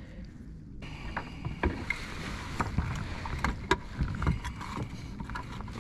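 Scattered knocks and clatter of handling on a plastic kayak deck as a smallmouth bass is laid on a measuring board, over a steady hiss that starts abruptly about a second in.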